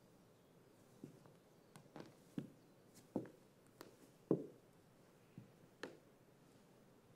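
Pointe shoes' hard toe boxes knocking on a wooden floor as a dancer steps and rises onto pointe: about ten light, irregular knocks, the loudest a little past halfway.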